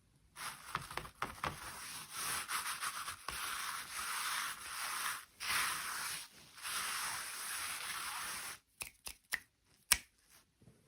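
Rubbing, scraping noise, typical of hands working on toy packaging, with short breaks, then a few sharp clicks near the end.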